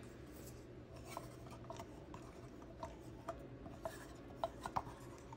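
Faint scraping and scattered small clicks of a silicone spatula working against a metal measuring cup as olive oil is scraped out of it into a plastic blender cup.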